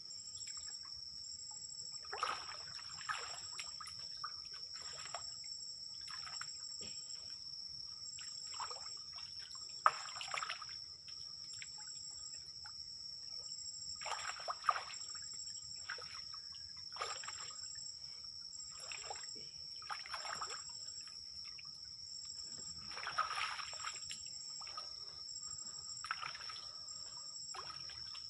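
Water splashing and sloshing in irregular bursts as a man standing in the water hauls up a fish net, with one sharp knock about ten seconds in. Behind it runs a steady, high-pitched night insect chorus with a pulsing chirp.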